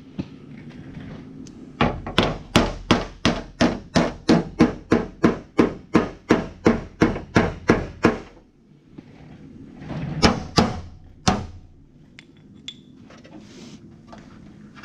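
Hammer blows on the car's fender: a quick, steady run of about twenty strikes at roughly three a second, then a short pause and three more blows. This is body-shop work, hammering the damaged fender back into shape.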